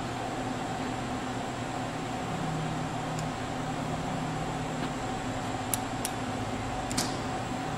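Steady hum and hiss of a 1984 Elox-Fanuc wire EDM running with its dielectric fluid pump on. A low tone joins for about two seconds a little over two seconds in, as an axis moves. A few sharp clicks from the control panel come near the end.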